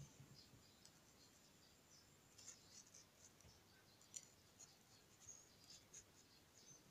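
Near silence, with faint scattered crisp ticks and scrapes of a small carving knife cutting into watermelon rind and flesh.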